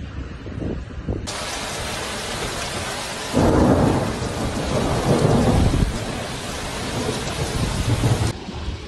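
Heavy rain hissing steadily, with a loud rumble of thunder that breaks in about three and a half seconds in and rolls on for a couple of seconds. Before the rain begins, about a second in, there is only wind noise on the microphone.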